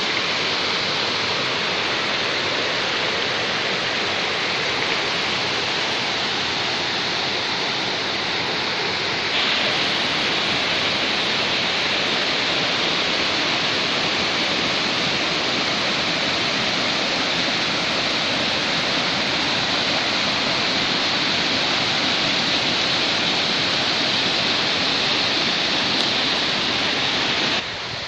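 Steady rush of white water from a rocky stream's cascade pouring over smooth rock slabs. It grows a little louder about nine seconds in and drops off just before the end.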